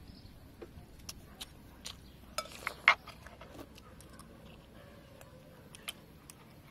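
Metal spoons clinking and scraping against a ceramic soup bowl as people eat. There are scattered light clinks, with a louder cluster about three seconds in.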